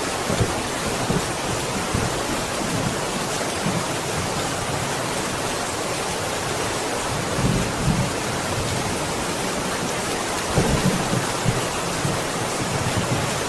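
Steady heavy rain falling, with low rumbles of thunder swelling a few times, the strongest about two thirds of the way in.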